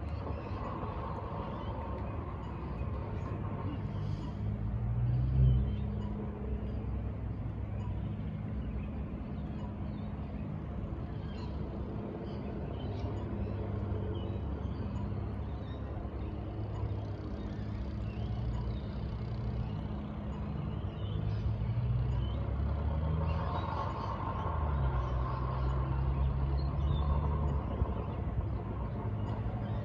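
City street traffic with engines running steadily, a bus or truck among them. One loud moment comes about five seconds in, and a heavier engine swells up around 23 to 28 seconds.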